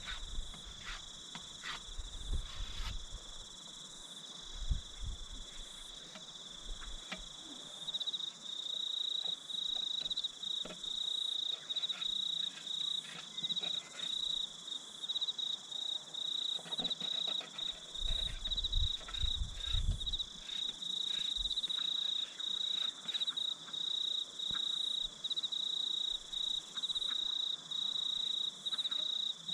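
Insects chirping in a rapid, high, pulsing trill that grows louder about eight seconds in, with a few low bumps near the start and around the middle.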